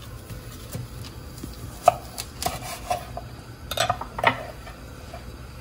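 Kitchen knife trimming and halving Brussels sprouts on a wooden cutting board. The blade knocks sharply on the board several times, from about two seconds in to just past four seconds.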